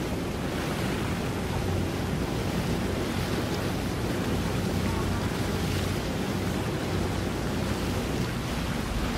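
Steady wind rushing over the microphone mixed with the wash of water, with a faint low hum, like a boat engine, underneath.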